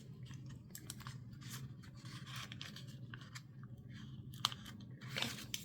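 Light crackling, scraping and clicking of a PET tape sticker and paper being carefully handled and peeled by hand, with one sharper click about four and a half seconds in, over a faint low hum.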